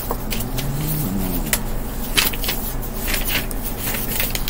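Book pages being leafed through: a run of short, irregular papery rustles and flips, over a steady low hum.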